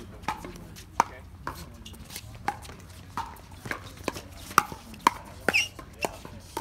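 Pickleball paddles and a plastic pickleball in a fast doubles rally: a sharp pock about every half second, from paddle hits and bounces on the hard court.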